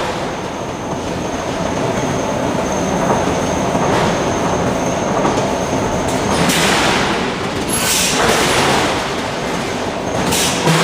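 Continuous loud industrial machinery din of a steel forge, with a faint steady high whine. Three louder rushing, hiss-like surges come about six, eight and ten seconds in.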